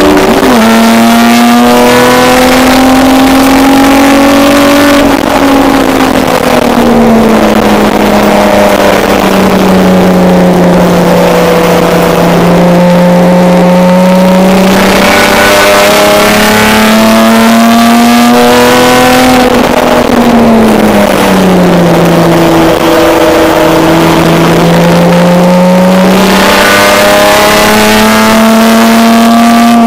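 Race car engine heard loud from inside the stripped, caged cabin, running hard with its pitch climbing steadily and then falling away twice, around five seconds in and again about twenty seconds in, before climbing again.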